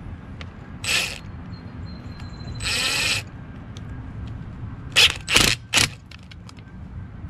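Cordless drill run in short trigger pulls, its bit turning in a small metal carburetor part: a brief whir about a second in, a longer whir near three seconds, then three quick blips around five seconds in.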